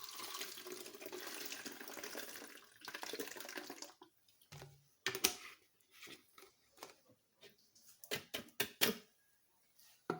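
Water poured steadily for about four seconds, then a string of sharp knocks and clinks, the loudest about halfway through and again near the end.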